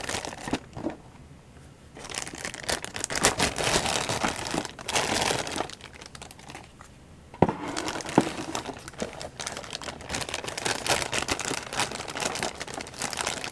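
Thin clear plastic bags crinkling and rustling as they are handled and pulled open by hand, in spells with two short lulls. There are two sharp clicks just after the middle.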